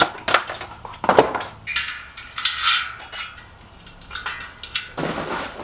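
A Maxxis DHR mountain-bike tire being worked onto a bicycle wheel rim by hand: a run of clattering knocks and clicks, with a longer rasping stretch in the middle.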